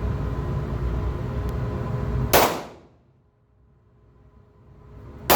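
Two 9 mm pistol shots about three seconds apart, each a sharp crack with a short ringing tail. Before the first shot there is a steady low rumble, which drops away after it.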